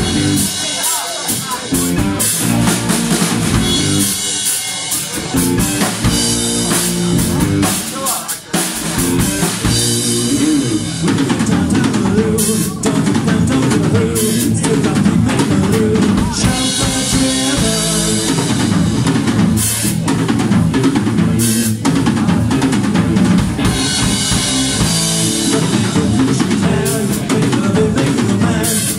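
Live rock band playing: drum kit with bass drum and snare, electric guitar and bass guitar. The music is thinner for the first ten seconds or so, then the full band fills in.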